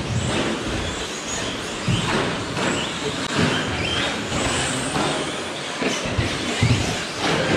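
Several 1/10-scale electric RC short course trucks racing on an astroturf track: high motor whines rising and falling over a steady wash of tyre and chassis noise, with repeated knocks and thuds as trucks land and hit things.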